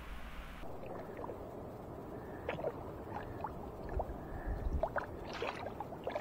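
Shallow river water gurgling and splashing around rocks, with many small sharp splashes over a steady rush. It starts under a second in, when the picture changes from the photo of the fish.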